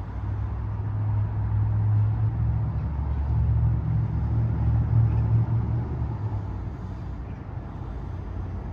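Car engine running with a low rumble that swells for a few seconds and then eases off.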